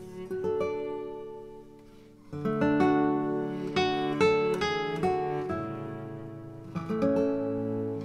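Background music led by acoustic guitar: softer picked notes, then louder strummed chords come in about two seconds in.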